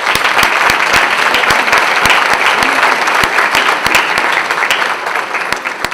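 Audience applauding: many people clapping together in a dense, steady clatter that eases slightly near the end.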